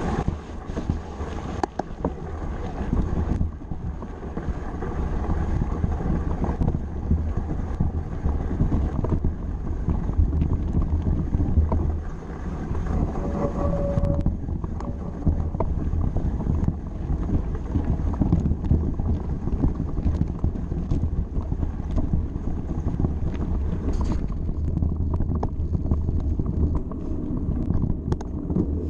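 Wind buffeting the microphone of a mountain bike's action camera while riding over a rough, stony dirt track, with steady tyre rumble and frequent clicks and rattles from the bike.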